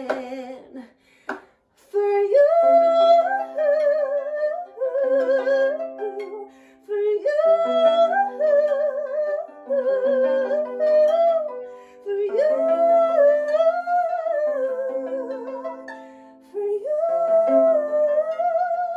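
A woman singing a slow melody with vibrato while accompanying herself on a small wooden harp, the plucked harp notes ringing on beneath the voice. A short pause comes about a second in, then four sung phrases follow, each with a brief break between them.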